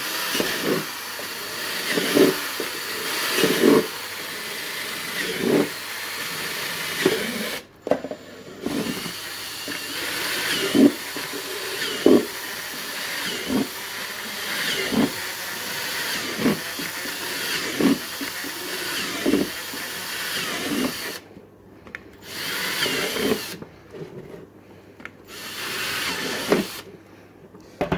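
Ryobi cordless drill running as its bit bores one hole after another through the bottom of a thin plastic container, with a short sharp knock about every second and a half and some high squeaks from the plastic. The drill stops briefly about eight seconds in and stops and starts several times near the end, between holes.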